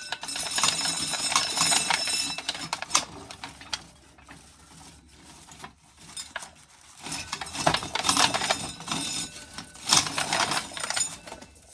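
Corn sheller stripping dry ears, the kernels clattering and clinking in a dense rattle. The clatter eases off for a few seconds in the middle, then picks up again.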